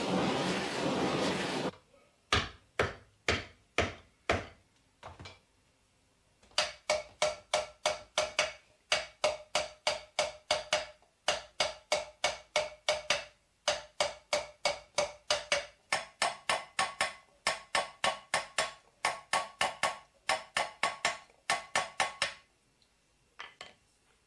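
Gas torch hissing steadily as it anneals the silver, cutting off suddenly in under two seconds. Then a hand hammer striking a silver vessel held over a metal stake to raise it, at about three blows a second in several runs with short pauses, each blow ringing with a bright metallic tone.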